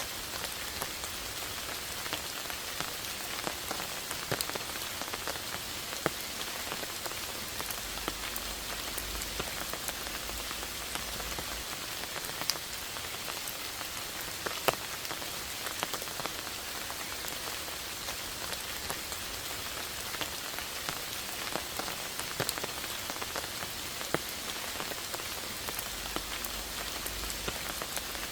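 Steady rain: a continuous hiss with many separate drops landing as sharp ticks.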